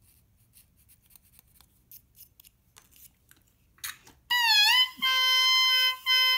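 Faint scratchy ticks of a reed knife scraping the cane, then about four seconds in an oboe reed crowing in two short blows. The first is a bright squawk near high C that bends down and back up; the second holds steady with the lower octave sounding under it. The crow has been lowered a touch by the scraping behind the heart.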